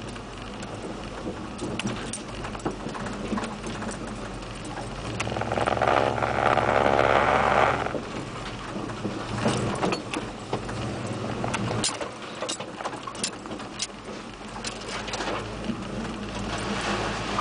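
Lifted GM four-wheel-drive pickup's engine running, heard inside the cab, with short clatters and knocks from the cab as it crawls over rough trail. The engine gets much louder for about three seconds around the middle as the truck climbs a steep pitch under load.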